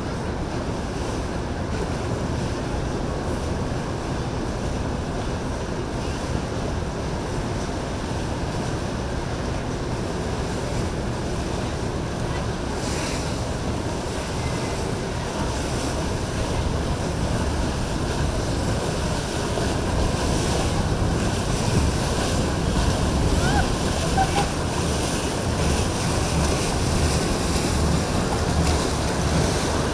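Wind buffeting the microphone over waves and surf in the inlet, with boat motors running; it grows louder in the last third.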